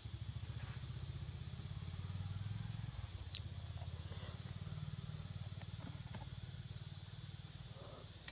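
Low, evenly pulsing rumble of a small engine running nearby, swelling a little about two seconds in and slowly easing off toward the end, over a steady high hiss, with a few faint clicks.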